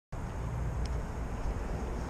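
Outdoor ambience: a steady low rumble of wind on the microphone, with a faint click just under a second in.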